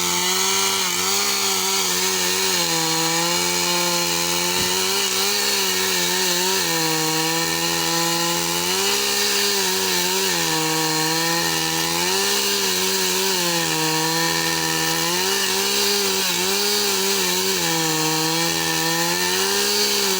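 Chainsaw running at high speed without a break. Its pitch sags and recovers every two to three seconds, as the chain is loaded in a cut through wood.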